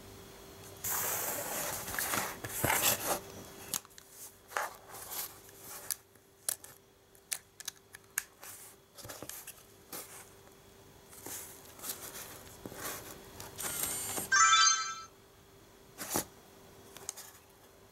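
Handling of a Nikon Coolpix S7000 compact camera: a rustle as it is picked up, then scattered clicks and taps as it is turned over in the hands. About fourteen seconds in the camera powers on with a short electronic start-up tone as its zoom lens extends, followed by a single click.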